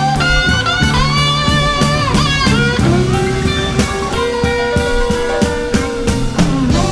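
Blues music: a guitar playing bent, sliding notes over a drum beat, with no singing here.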